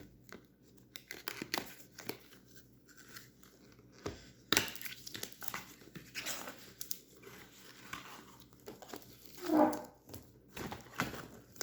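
Packaging of a multipack of toy puzzle cubes being torn open and crinkled, with scattered rustles and clicks. There is a louder rustle about four and a half seconds in and a short louder sound about three quarters of the way through.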